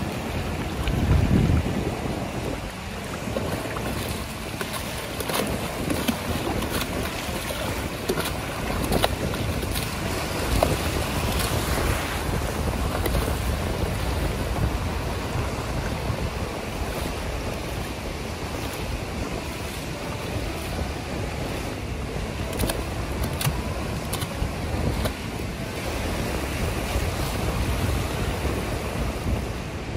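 Small surf waves washing up a sandy beach, with wind buffeting the microphone.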